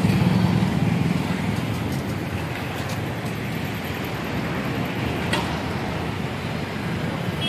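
Steady din of running engines and road traffic, a JCB backhoe loader among them, with a faint knock about five seconds in.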